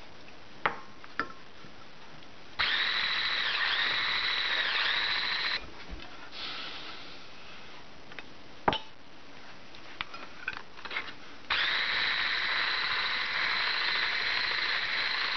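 Electric stick blender with a wire whisk attachment beating eggs and sugar in a stainless steel pot: its motor whines steadily, running for about three seconds from about two and a half seconds in, then again from about eleven and a half seconds on. In the pause between runs come a few sharp knocks, the loudest about nine seconds in.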